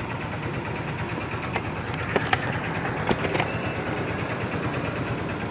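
Petrol station fuel dispenser running steadily as it pumps petrol into a motorcycle's tank, with a few sharp clicks along the way.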